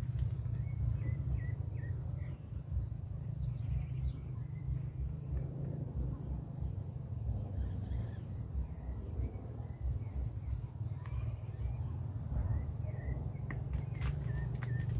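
Steady high-pitched insect trill with scattered short chirps, over a continuous low rumble. A couple of sharp clicks come near the end.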